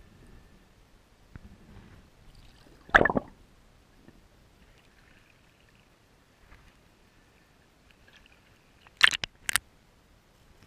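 Muffled water splashing and sloshing against the camera as it moves at and just under the surface: one loud splash about three seconds in, and two sharp splashes near the end, over a faint low rumble.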